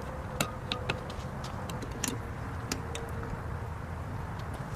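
Irregular small sharp clicks and ticks of a Phillips screwdriver working on screws, over a low steady background rumble.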